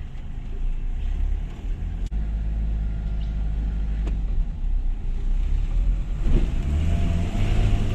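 Two-wheel-drive Toyota HiLux running over a rough dirt track, heard from inside the cab: a steady low engine and road rumble with two sharp knocks, and the engine rising a little near the end.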